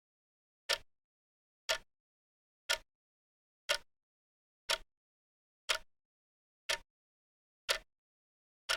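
Timer ticking sound, one sharp tick each second, with dead silence between the ticks.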